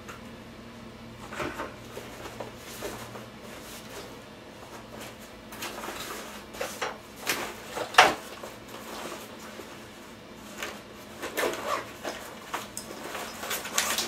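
Gear being rummaged out of a nylon backpack: rustling fabric with scattered knocks and clicks of hard items being handled, the sharpest about eight seconds in.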